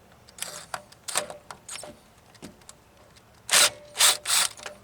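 Hand tools and metal parts clicking and clanking while an old fuel line fitting is worked loose, then three short, loud, hissing bursts in quick succession a little past halfway.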